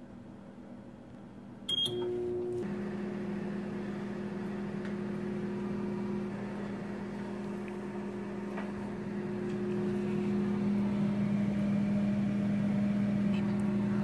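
A microwave oven's keypad beeps once as it is started, then the oven runs with a steady hum.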